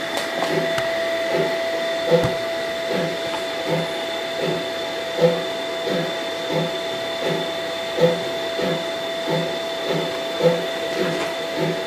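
Model railroad locomotive running: a steady motor whine with a soft rhythmic beat about twice a second and a louder accent every two to three seconds.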